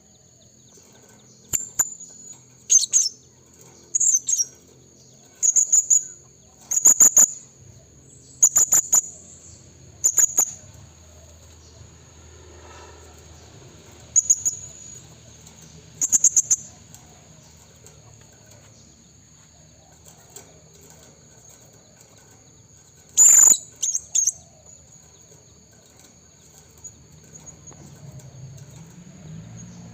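Blue-crowned hanging parrot (serindit) calling: short, shrill, very high calls, each a quick run of pulses, repeated every second or two, then more sparsely after a pause, with a loud double call about two-thirds through. A steady thin high tone runs underneath.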